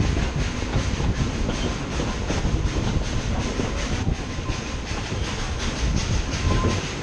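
Steam train hauled by 2-8-2 locomotive 192, climbing a mountain grade and heard from an open-sided passenger coach: a steady, fast rhythmic clatter of several beats a second over a deep rumble.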